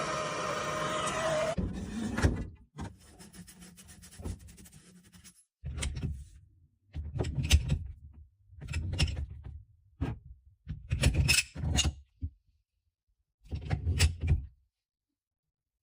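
A steady humming tone that cuts off abruptly about a second and a half in, followed by a series of short rubbing and scraping sounds separated by brief silences.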